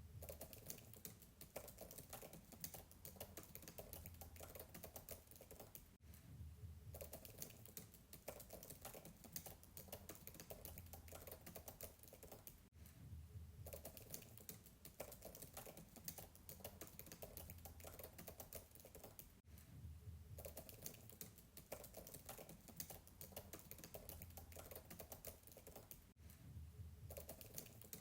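Fast, faint typing on a MacBook keyboard heard from a distance: a dense, steady run of soft keystroke clicks, broken by a brief pause about every seven seconds.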